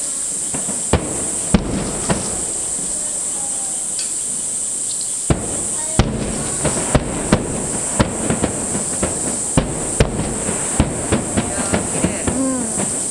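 Fireworks aerial shells bursting. There are a few scattered booms at first, then a rapid run of many bangs from about six seconds in, over a steady high hiss.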